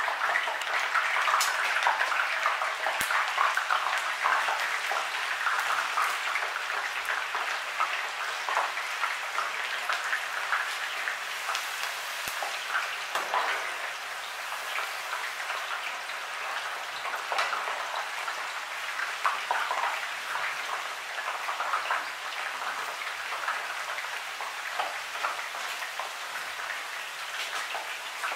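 Sliced onions deep-frying in a pan of overheated oil: a dense, steady sizzle and crackle that is loudest at first and settles a little quieter after about fourteen seconds. The oil is so hot that it froths up close to spilling over.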